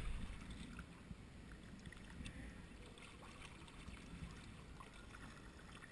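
Faint lapping and trickling of calm sea water around a kayak, with a few small drips and ticks.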